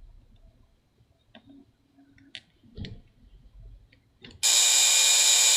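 A few faint clicks of tiny screws and parts being handled, then about four and a half seconds in a small electric precision screwdriver starts whirring steadily and loudly as it drives a screw.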